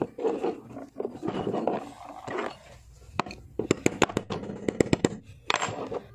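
Firing pin and its lock being pressed back into a Zigana pistol's slide by hand: metal parts scraping and rubbing, then a quick series of sharp metal clicks and taps in the second half.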